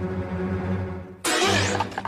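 A held low music chord, then about a second in a sudden loud cartoon sneeze from a pink elephant, a noisy blast that quickly fades away.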